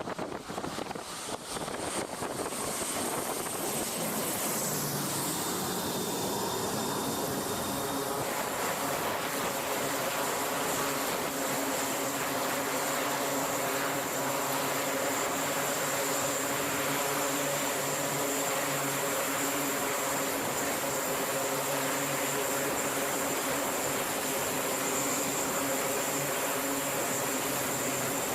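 Aircraft turbine engine running on a carrier flight deck. It builds over the first few seconds, then holds a steady high whine over a low hum.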